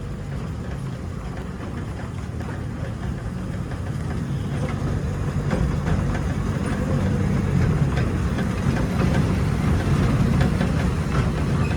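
Park ride train running along its track: a steady low rumble with faint scattered clicks, slowly growing louder.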